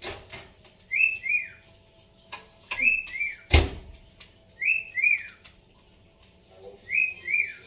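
A bird calling over and over: a pair of short downward-sliding chirps about every two seconds. One sharp knock about three and a half seconds in.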